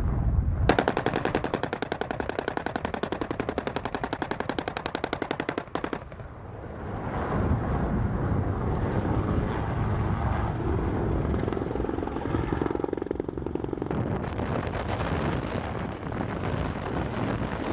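AH-1Z Viper's 20 mm three-barrel rotary cannon firing one long, very rapid burst of about five seconds, starting just under a second in and cutting off abruptly. After it, the helicopter's rotor and turbine noise runs on steadily.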